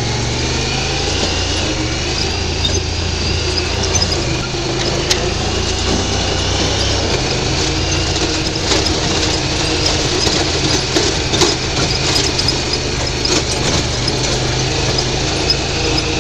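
UTV engine running steadily as it is driven over rough, rocky ground, with scattered knocks and rattles from about halfway in.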